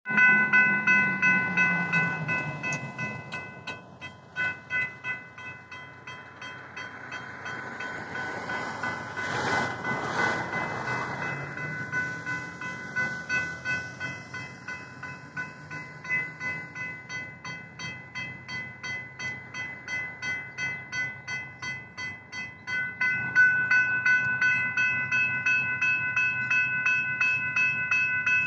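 Railroad crossing warning bells, General Signals Type 3 electronic bells, ringing rapidly and continuously while the crossing is activated. They are louder at the start and again in the last few seconds.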